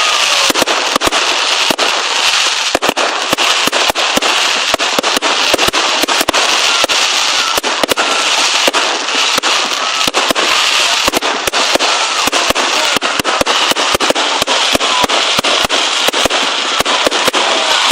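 Fireworks going off in a dense, unbroken barrage: rapid bangs many times a second over a steady crackle.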